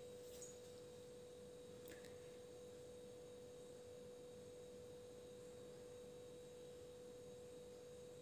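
Near silence with a faint, steady, pure tone like a hum. The stirring in the pan is not audible.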